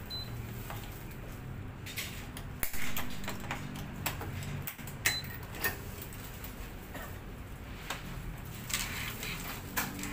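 Tennis racket being strung on a stringing machine: string pulled through the frame and clamps handled, making light clicks, taps and a rustle of sliding string, with two sharper clacks about 3 and 5 seconds in.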